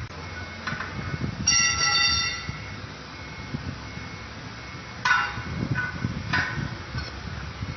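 Metal clanks and knocks, a few seconds apart, over a low rumble. About one and a half seconds in comes a loud ringing tone lasting just under a second.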